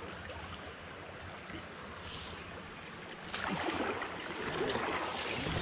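Creek water running over rocks, a steady rushing that grows louder about three and a half seconds in.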